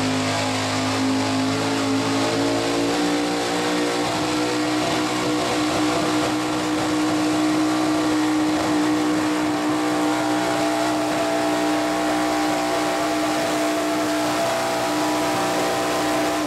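Modified gas pulling truck's engine at full throttle, dragging a weight-transfer sled: the revs climb over the first few seconds, then hold steady and high for the rest of the pull.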